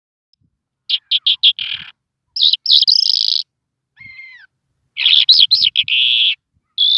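A songbird singing loud phrases of quick repeated notes and buzzy trills, each about a second long, broken by short pauses, with one fainter falling note near the middle.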